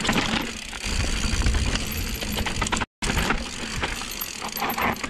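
Mountain bike descending a dirt forest trail: a steady rumble of tyres on dirt with the bike rattling, over a low buffeting on the camera microphone. The sound cuts out briefly about three seconds in.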